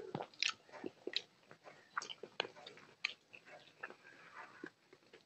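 Close-miked chewing of crisp fried food, with irregular sharp crunches and clicks.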